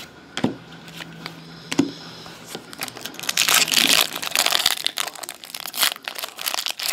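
Two light taps as trading cards are handled, then the foil wrapper of a trading-card pack crinkling loudly in the hands, from about three seconds in, as it is worked open.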